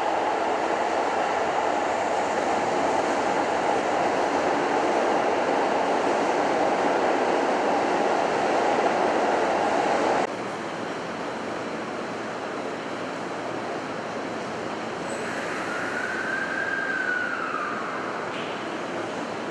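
Electric commuter train running at an underground station platform: a steady, loud rumbling noise that cuts off abruptly about ten seconds in to a quieter rumble, later crossed by one short squeal that rises and then falls in pitch.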